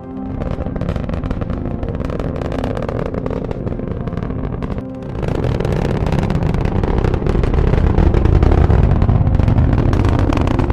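Rocket engine roar of a descending rocket's landing burn: a loud, crackling rumble that starts suddenly, dips briefly about five seconds in, then swells louder.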